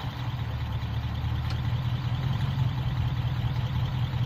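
Cord 812's V8 engine running with a steady low drone, with a faint click about one and a half seconds in.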